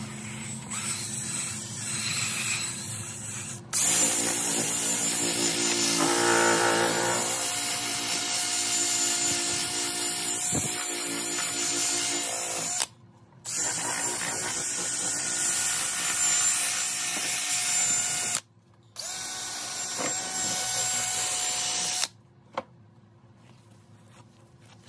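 Handheld electric polisher spinning a foam pad against a plastic lightbar lens, polishing it after wet sanding. It runs with a steady whine, cuts out briefly twice, and shuts off about 22 seconds in.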